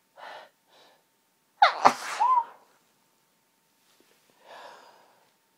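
A woman sneezing from hayfever in a high-pitched voice: two quick gasping breaths in, then one loud sneeze whose sharp high pitch drops steeply, with a short voiced tail. A softer breathy exhale follows near the end.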